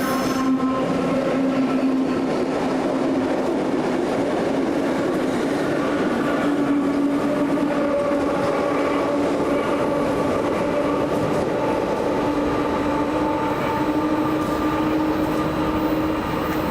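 A train running steadily, with a whine that rises slowly in pitch throughout.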